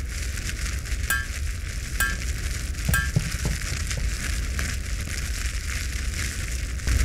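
Forge fire sound effect: a steady sizzling hiss of flames over a low rumble, with a sharp click about once a second three times in the first few seconds.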